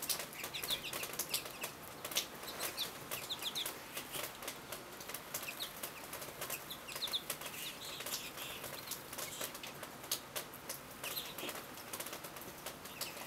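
A flock of American goldfinches at feeders: frequent quick wing flutters as birds come and go, with short runs of high twittering calls every few seconds.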